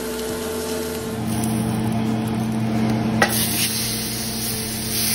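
Bone-in strip loin steak sizzling as it is laid into a hot cast iron skillet, the hiss growing brighter after a single sharp clack about three seconds in.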